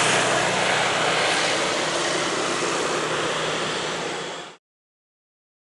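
Helibras AS350 B2 Squirrel helicopter climbing away after take-off. Its single turboshaft engine and rotor run steadily, slowly growing fainter, until the sound cuts off abruptly about four and a half seconds in.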